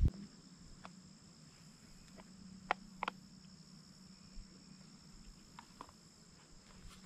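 Crickets chirring in a steady, high, unbroken drone, with a few faint clicks around three seconds in.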